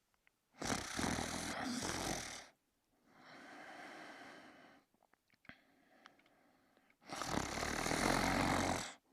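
A sleeping man snoring: two loud snores, each about two seconds long and some six seconds apart, with a quieter breath between them.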